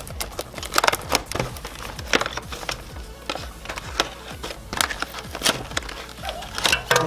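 Utility knife cutting open a stiff clear plastic blister pack, with repeated sharp clicks and crackles of the plastic, over background music.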